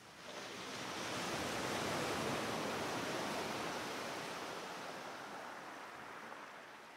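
Rushing, surf-like water noise that swells over the first two seconds and then slowly fades.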